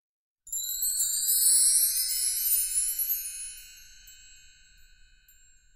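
A sparkling chime sound effect for a logo reveal: high, bell-like tinkling notes sweeping upward, starting about half a second in, then slowly fading away.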